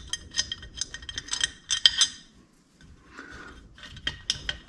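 Small metal clicks and clinks of already-loosened engine bolts being backed out and handled with hand tools, in quick irregular runs with a short pause about halfway through.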